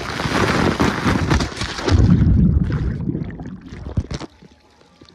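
Water rushing and wind buffeting the microphone during a ride down a water-park slide, with a heavier low rumble about two seconds in. The sound then drops away to a much quieter level with a few knocks.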